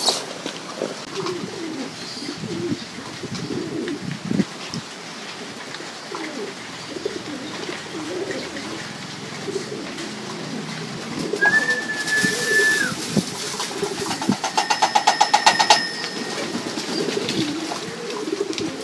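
Racing pigeons cooing throughout from the wire loft. About halfway through comes a short, steady, high whistle-like tone lasting about a second. A couple of seconds later there is a loud, rapid rattle of about a dozen pulses a second, lasting under two seconds.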